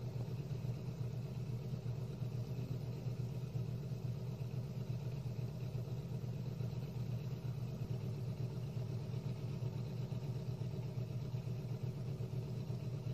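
Engine of a heavy machine running steadily at a low, even pitch, with no change in speed.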